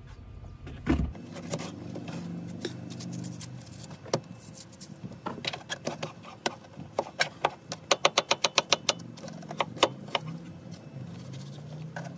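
Kitchen knife chopping through watermelon onto a cutting board, with irregular taps and knocks. About eight seconds in comes a quick run of about ten chops at roughly eight a second as the melon is diced into cubes.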